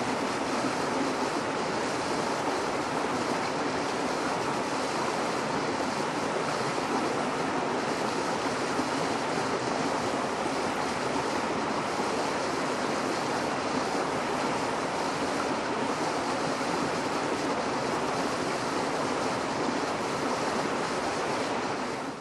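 Steady rush of flowing water, even throughout and fading out at the very end.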